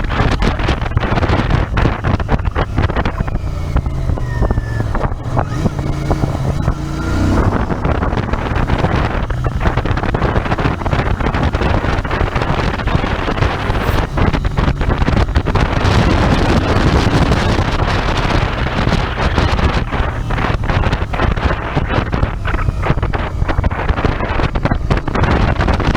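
Royal Enfield Interceptor 650's parallel-twin engine running on the move, with heavy wind buffeting on the microphone.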